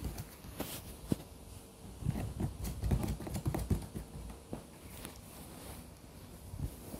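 Irregular soft taps, low thumps and rustling: handling noise from the phone and the blanket as the camera is moved along the floor. The thumps cluster about two to four seconds in.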